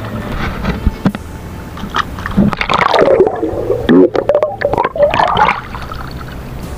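Water splashing and gurgling with scattered knocks, busiest and loudest in the middle, where a wavering gurgling tone rises and falls.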